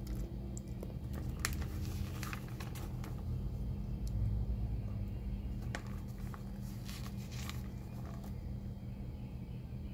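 Glossy paper pages of a catalogue being handled and turned, with short crackles and rustles scattered through, over a steady low hum.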